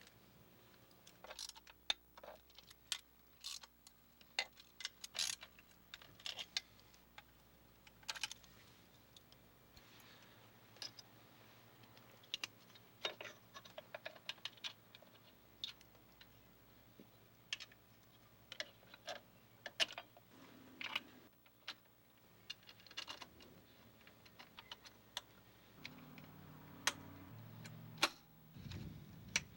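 Irregular sharp clicks and clinks of hand tools and small parts being handled, with a brief low hum near the end.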